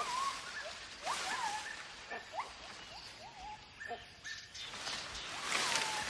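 Gibbon calling: a series of rising whooping hoots, some held level at the top, with several surges of rustling leaves and branches.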